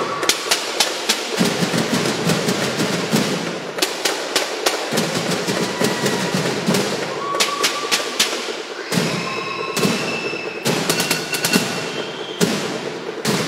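Percussion band drumming a fast, dense rhythm: many sharp, cracking strikes, with a few short high tones.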